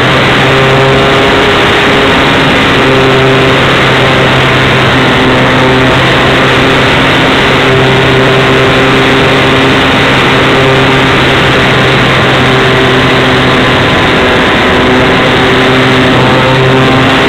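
Electric motor and propeller of a Tech One Extra 330 foam RC aerobatic plane in flight, heard from a camera on the wing: a loud, steady drone with a rush of wind noise, its pitch shifting a little now and then.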